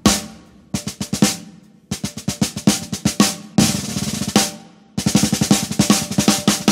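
Drum kit playing a solo break: fast snare and tom rolls in short phrases, each opened by a cymbal crash, with brief gaps between the phrases.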